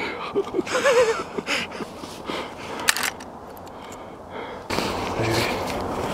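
Footsteps crunching through snow with clothing rustle, while a person walks. About a second in a brief wavering voice sound is heard, near the middle comes one sharp click, and from just before five seconds in a louder steady rush of wind or handling noise covers the steps.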